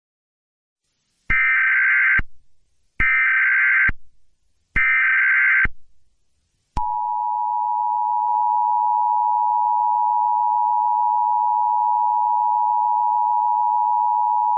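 Emergency Alert System header: three short bursts of buzzing SAME data tones, each about a second long, then about seven seconds in the two-tone EAS attention signal starts and holds steady.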